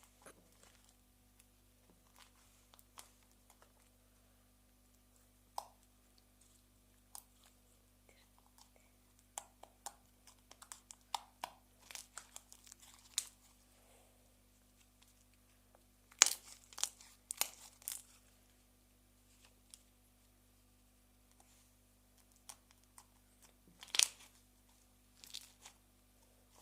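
Slime being squeezed and stretched by hand, giving scattered sticky crackles and pops, with a louder cluster a little past the middle and another near the end. A faint steady hum sits underneath.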